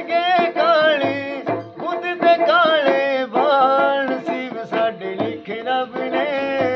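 A man singing a folk song in a long, wavering, ornamented melody, accompanied by a small plucked lute that keeps a steady low pulse underneath.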